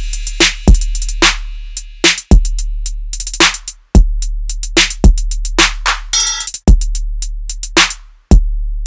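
Hip hop-style background music: a drum-machine beat with deep bass kicks and sharp snare hits repeating at a steady tempo.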